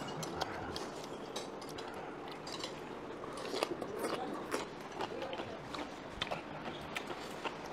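Eating at the table: many small clicks and clinks of utensils against bowls and the pot, with chewing, over a steady low hiss.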